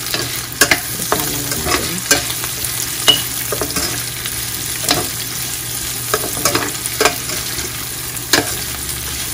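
Pork, garlic and red onion sizzling in oil in a stainless steel frying pan, with a metal spoon repeatedly scraping and clinking against the pan as the sauté is stirred.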